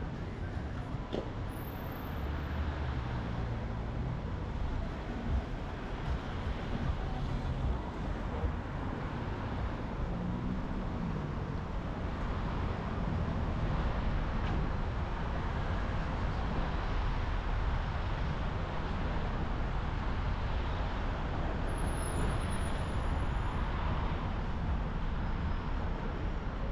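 A car driving through city traffic: a steady low rumble of engine and tyre noise, with other vehicles around it. The rumble grows a little louder about halfway through.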